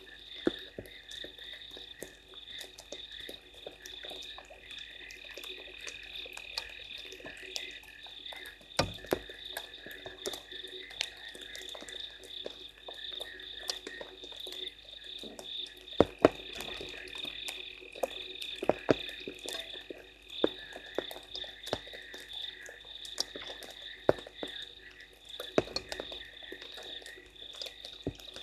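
Night chorus of frogs calling steadily at a waterhole, a continuous high-pitched trilling, with irregular sharp ticks and taps of falling rain.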